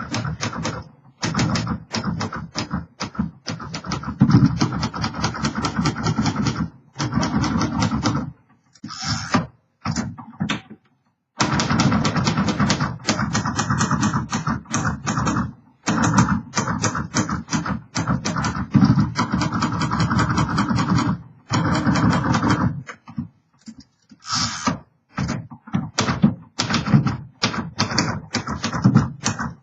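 1948 Royal Quiet DeLuxe manual typewriter being typed on: fast runs of clacking keystrokes broken by short pauses.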